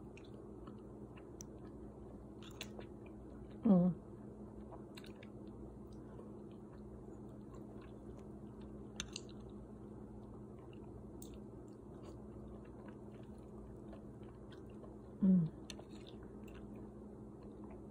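Close-miked chewing of a soft millet and bean soup, with small wet mouth clicks over a faint steady hum. Twice there is a short hum from the voice that falls in pitch: about four seconds in and again near the end.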